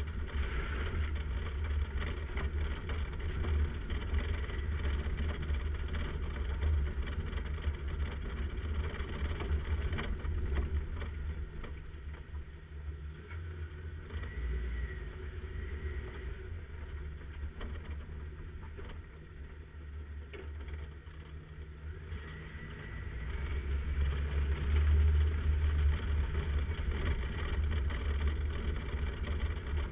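1997 Jeep Wrangler TJ driving along a dirt road, its engine and road noise picked up outside the body, with a heavy low rumble of wind on the microphone. It eases off in the middle and grows louder again later on.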